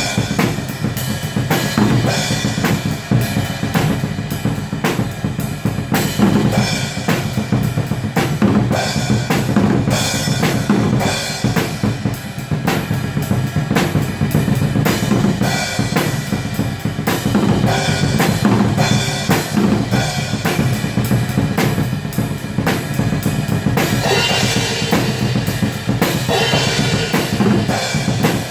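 Atmospheric black metal music: fast, dense drums with bass drum, snare and cymbals under a thick wall of sound.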